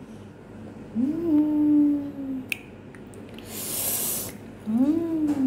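A woman humming an appreciative "mmm" twice while tasting sambal, each hum rising then falling. Between the two hums comes a short breathy hiss.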